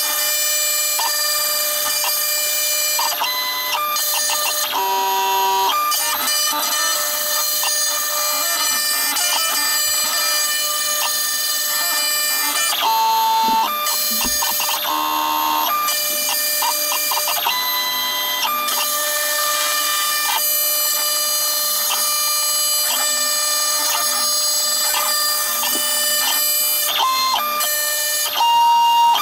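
CNC router milling a wooden folding-knife handle slab with an end mill, played back six times faster than real time: a steady high-pitched machine whine with short tones that shift in pitch every few seconds.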